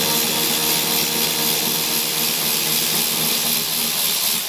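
Power tool running steadily, backing out a factory 10 mm bolt from the Cybertruck's underbody.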